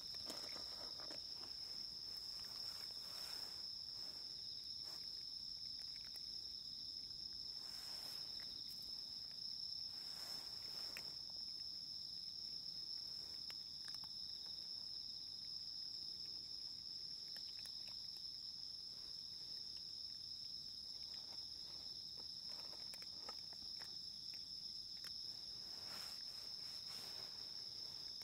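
Insects chirring steadily in one unbroken high-pitched drone, with faint scattered clicks and rustles.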